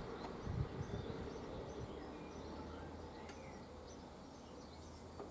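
Low rumble of a passed Class 755 train fading away into faint outdoor background noise, with a few faint high chirps.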